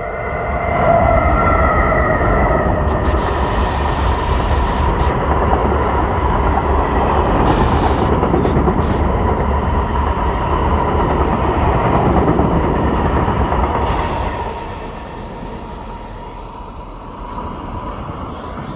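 A freight train headed by two SNCB class 13 electric locomotives passes close by, hauling tarpaulin-covered wagons. As the locomotives go by at the start, a whine falls in pitch. Then comes a steady, loud rumble of wagon wheels with a thin high tone, which drops away about fourteen seconds in.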